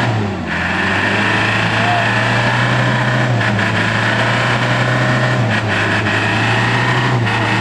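Mitsubishi truck's diesel engine revving hard and steady under load as it strains up a steep, slippery mud slope. Its pitch sags a little twice and then picks back up.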